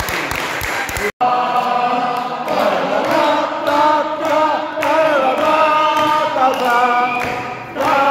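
A group of people singing a song together in chorus, unaccompanied, clapping hands in time. About a second in, the clapping alone breaks off briefly and the singing starts.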